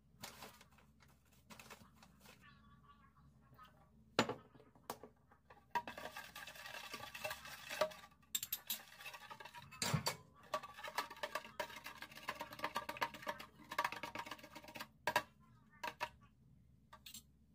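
Spoon stirring a liquid dressing in a clear container, scraping and clinking against its sides in bouts, with a few sharp knocks, stirring until the sugar dissolves.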